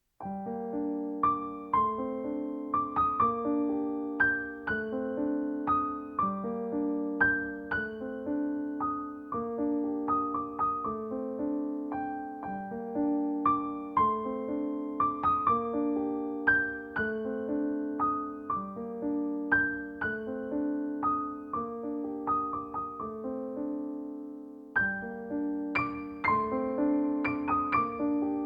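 Gentle background piano music, slow notes over soft sustained chords, with a brief pause near the end before it picks up again.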